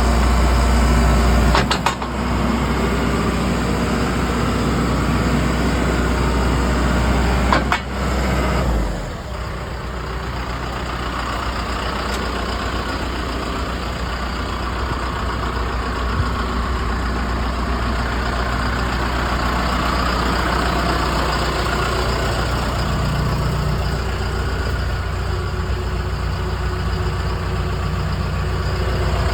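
2008 John Deere 310J loader backhoe's diesel engine running steadily. Its low drone shifts down about nine seconds in, after two brief clicks.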